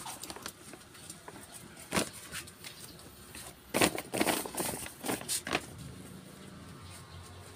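A folding camping chair being opened and handled: rustling of its nylon fabric with a few sharp clacks and knocks from the metal frame, loudest in a cluster around the middle.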